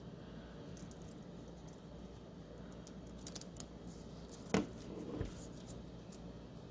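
Faint scattered clicks and handling noises as a 3D printing pen is worked by hand, with one sharper click about four and a half seconds in and a low thump just after five seconds.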